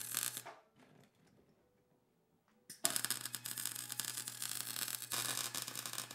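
MIG welder arc crackling as a bead is laid on steel, with a steady low hum under it. The arc stops about half a second in, leaving about two seconds of quiet, then strikes again near three seconds in and keeps crackling.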